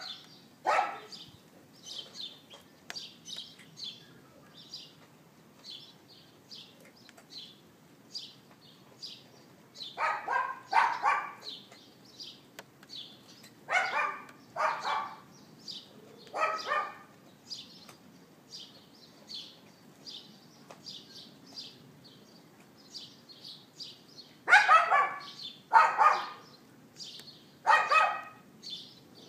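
Small dog yapping outdoors: short sharp barks, singly or in quick pairs and triplets, with pauses of several seconds between the bouts.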